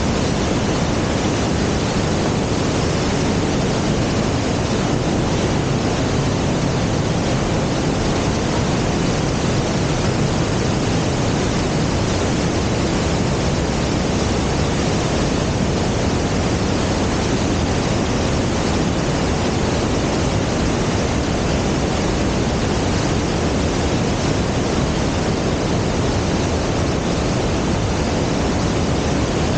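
Mountain creek rushing in white water over boulders and small cascades: a steady, unbroken water noise.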